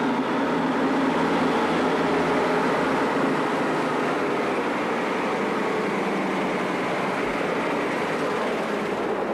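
Diesel lorry engine running steadily as the truck drives up and passes close by.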